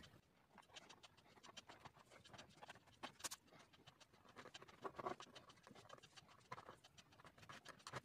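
Faint scratching of a toothpick scoring through a layer of black gouache into wax crayon on thick paper: many quick, irregular short scrapes.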